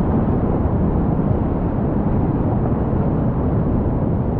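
Whitewater rapids rushing steadily around a kayak, a loud, even, deep-sounding noise with little treble.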